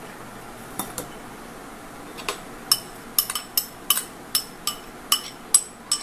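A bowl being tapped against a steel strainer again and again, giving sharp ringing clinks, as soaked poha is knocked out of it to drain. There are two light clinks about a second in, then a quick run of about a dozen from about two seconds in.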